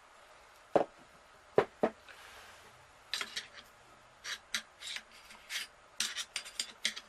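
Metal parts of a Smith & Wesson M&P15 Sport II AR-15 knocking and scraping as the bolt carrier group and charging handle are worked in the upper receiver. Three sharp knocks come in the first two seconds, then a run of short scrapes and clicks.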